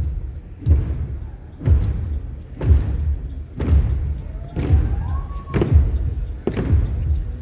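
Live rock band playing loud through a concert hall's PA, heard from the audience: a heavy bass-drum beat lands about once a second, and a note slides up and holds briefly about two-thirds of the way in.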